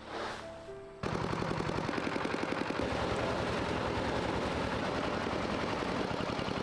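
A small combustion engine starts running about a second in, a steady rapid chatter of firing pulses.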